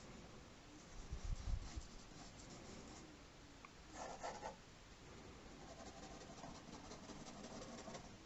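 Faint scratching of a drawing tool making quick sketch strokes on paper, with a brief burst of harder strokes about four seconds in and a few light knocks against the desk near the start.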